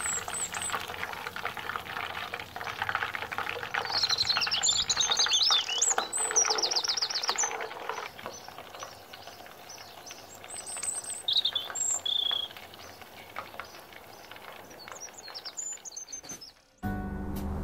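Beer-battered rockfish deep-frying in a pot of hot oil: a steady sizzle with fine crackling. Songbirds chirp over it several times. The sound cuts off near the end.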